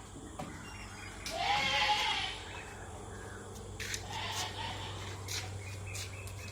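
Goats bleating: one loud bleat about a second and a half in and a fainter one around four seconds, with a few short sharp clicks and a steady low hum underneath.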